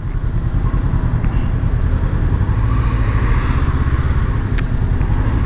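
Honda CB500X's parallel-twin engine running as the motorcycle rolls slowly in heavy traffic, heard as a steady low rumble.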